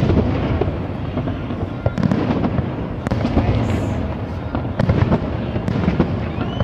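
Aerial fireworks shells bursting in quick succession: a continuous rumble of booms with many sharp cracks scattered through it.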